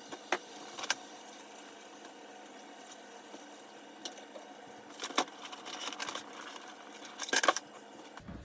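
Scattered knocks, clicks and light clatter of a styrofoam-and-plastic egg incubator being handled and wiped clean, over a faint steady hiss.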